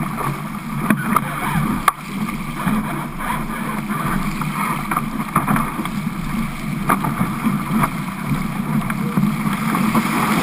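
Water rushing along the hull of a Fireball racing dinghy sailing fast through choppy water, with wind on the microphone and a few sharp slaps of waves and spray against the boat.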